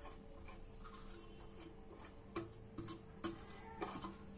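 Faint light ticks of a spoon against a plate as grated paneer is scraped off it into a pan, a few scattered clicks in the second half over a low steady hum.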